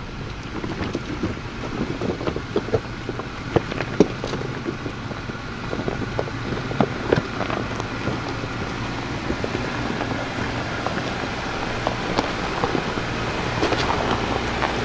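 An off-road vehicle's engine running low and steady as it crawls over a rocky trail, with scattered knocks and crunches of tyres on rock and gravel.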